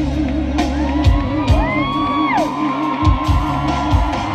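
Live freestyle pop music through a concert PA, with a woman's held, wavering sung note and whoops from the audience rising and falling over it in the middle.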